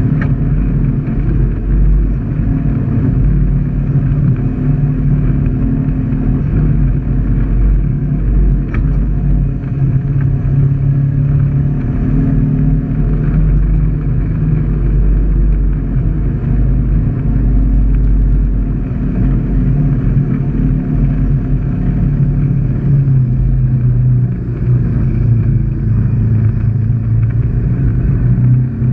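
Side-by-side UTV engine running steadily under light load as it drives a rough, muddy dirt trail, a constant low drone without big revs.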